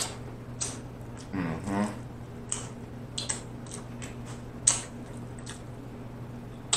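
Close-up wet mouth sounds of eating off a rib bone: sharp lip smacks and sucking clicks every half second or so, the loudest about two-thirds of the way through. About a second and a half in there is a short hummed "mm". A steady low hum runs underneath.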